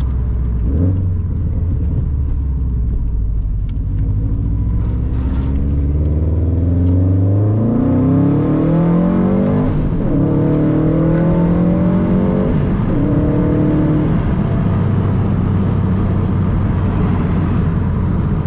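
Subaru WRX STI's turbocharged flat-four engine accelerating: its pitch climbs from about four seconds in, drops and climbs again through a few upshifts, then settles to a steady lower drone near the end.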